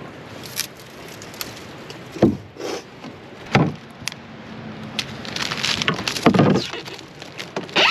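Canoe bumping and scraping against downed logs and branches: several hollow knocks, with rustling and scraping in between.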